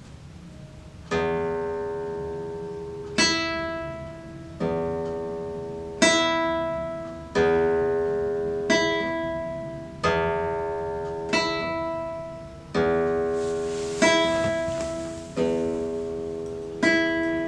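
Classical guitar playing a slow series of plucked chords, about twelve of them, one every second and a half or so, each ringing until the next is struck.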